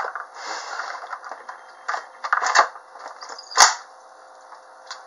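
Lid of a Housmile electric pressure cooker being turned to unlock and lifted off: metal scraping and several clicks, with one sharp, loud clack about three and a half seconds in.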